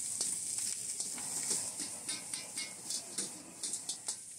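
Food sizzling steadily in a hot wok, with a metal utensil clacking and scraping against the pan at irregular intervals as it is stirred.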